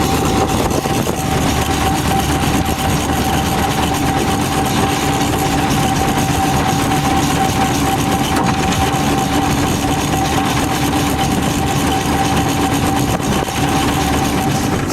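Steam traction engine running for ploughing: a steady, even noise with a constant high tone and a fainter lower tone held throughout.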